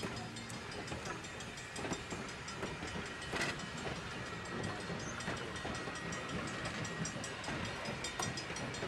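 Vintage passenger coaches rolling past: a steady rumble of steel wheels on rail, with sharp clicks as the wheels cross the rail joints.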